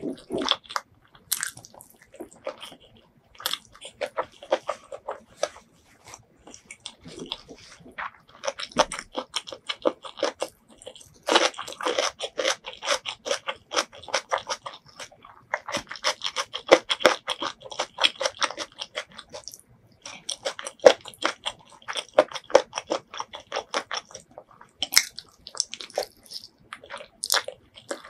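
Close-miked chewing of butter chicken and rice eaten by hand: clusters of rapid clicking mouth sounds lasting a few seconds each, with short pauses between.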